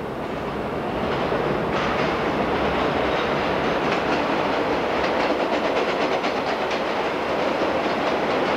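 New York City subway train running on an elevated steel structure, growing louder as it approaches over the first second or two, then a steady rumble. Rapid clicks of the wheels crossing rail joints run through the second half.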